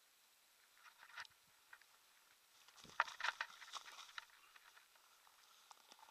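Faint rustling and crackling of grass as a large trout is handled on the ground, with scattered short crackles and a denser cluster about three seconds in.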